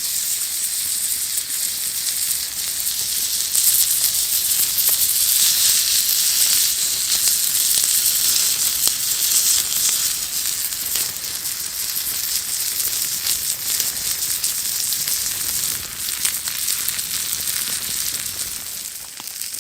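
Sirloin steak searing on a hot rock over a campfire: a loud, steady sizzle full of fine spitting crackles, starting abruptly and easing a little near the end.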